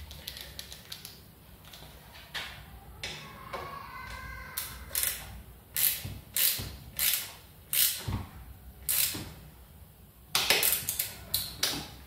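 Torque wrench ratcheting in a series of sharp clicks as the Shimano STI lever's handlebar clamp bolt is tightened to 4 Nm, with a quicker run of clicks near the end.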